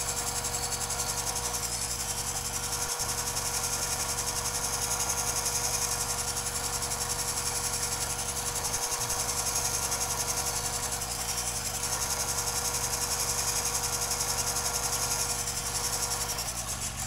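Metal lathe running with a boring bar cutting the inside of a welded .22 rifle receiver, sped up four times: a steady high buzz with a fast ripple and a held mid tone. It drops off near the end.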